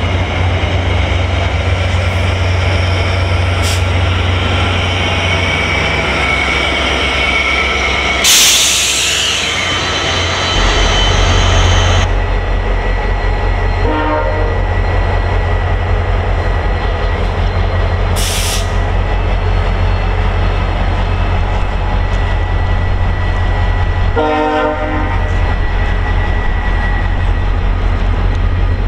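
A VIA Rail passenger train of F40PH-2 diesel locomotives and LRC coaches comes to a stop. A rising brake squeal gives way to a loud burst of air hiss about eight seconds in. Then the locomotives' diesel engines keep up a steady low drone while the train stands, with a shorter hiss a few seconds later.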